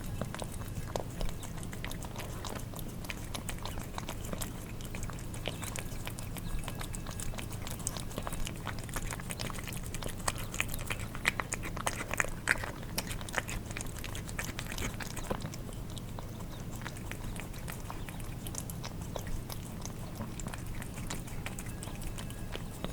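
Cats eating wet food: a run of small wet smacking and chewing clicks as their tongues and jaws work the food, busiest about halfway through. A steady low hum runs underneath.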